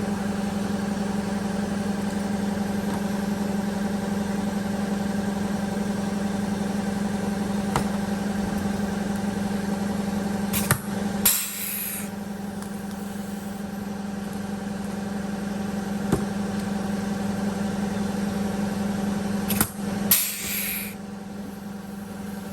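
Steady idling engine hum throughout. Twice, about eleven and twenty seconds in, a sharp click is followed by a short hiss, as rivets are set fixing a solar panel to the bus roof.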